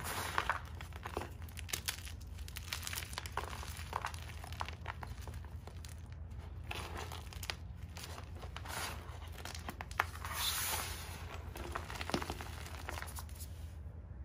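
Gym chalk crunching and crumbling as hands squeeze and break its lumps into powder: a steady run of soft, gritty crunches that stops just before the end.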